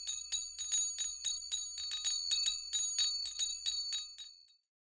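Small bells struck or shaken in a steady rhythm, about three to four strikes a second, ringing at the same few high pitches and fading out near the end.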